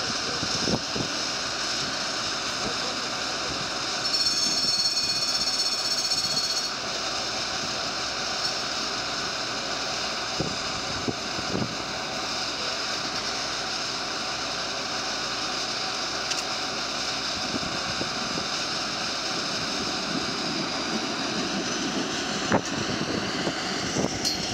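Tram-stop ambience: steady wind rush on the microphone with faint voices while a Tatra T3 tram stands at the platform. About four seconds in, a high whine of several tones sounds for roughly two and a half seconds, with a few light clicks later on. Near the end the tram begins to pull away.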